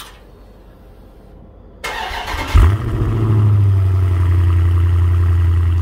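Car engine starting, heard at the exhaust tip: a brief crank about two seconds in, then the engine catches with a loud flare and settles into a steady, deep idle.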